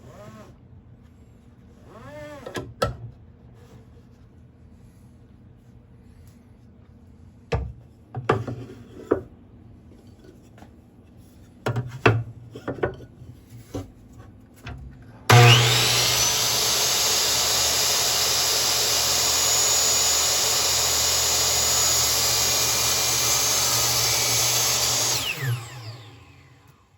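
Knocks and clicks of the saw and workpiece being handled, then a DeWalt miter saw's motor starts with a rising whine, runs steadily and loudly for about ten seconds for a 45-degree cut, and winds down near the end.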